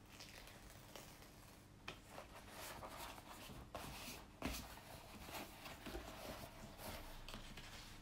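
A rolled diamond painting canvas being unrolled by hand on a table: faint rustling and crackling of the stiff canvas, with a few soft ticks and taps.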